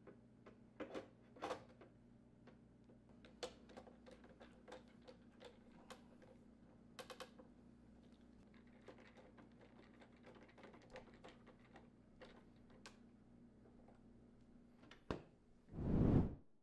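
Light, irregular clicks and taps of a 1/8-inch Allen wrench working the set screws of a refrigerator door handle, tightening them onto the mounting studs, over a faint steady hum. A short, louder rush of noise comes near the end.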